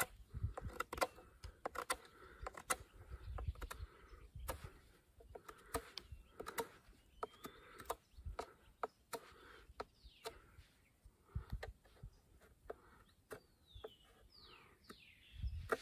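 Fixed-blade knife whittling a small stick of wood: a run of short, irregular cutting and scraping strokes. Birds chirp in the background, with a few falling calls near the end.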